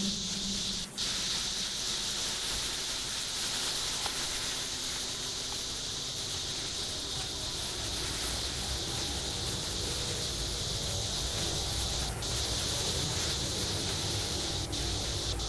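A steady hiss of noise that swells over the first several seconds and then holds level, with a thin, very high whine above it.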